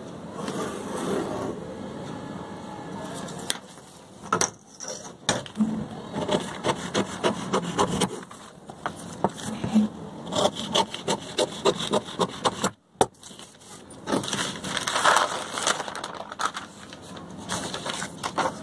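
Pen scratching along a steel ruler on newspaper over a wooden table, then paper being folded and handled, with many sharp clicks and taps.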